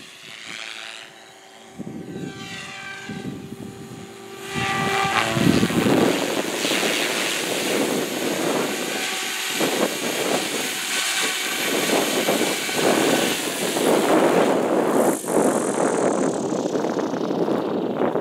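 Goblin 380 electric radio-controlled helicopter flying, its main rotor blades and motor whining. It is fainter at first while the helicopter is far off and gets loud about four and a half seconds in as it comes in low. Near the end the high motor whine falls in pitch as the helicopter spools down.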